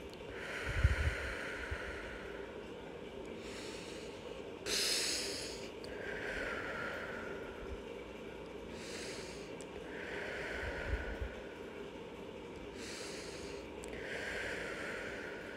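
A woman breathing slowly and deeply through the nose during seated meditation, about four breaths: each inhale a short, high hiss of air, each exhale a longer, softer rush.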